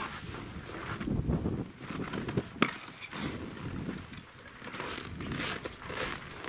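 Footsteps crunching in very cold snow, uneven and irregular, with a sharp click about two and a half seconds in and wind buffeting the microphone.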